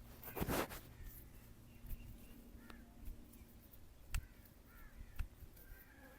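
Birds calling: a harsh caw about half a second in and a few short chirps. Two sharp clicks come about four and five seconds in.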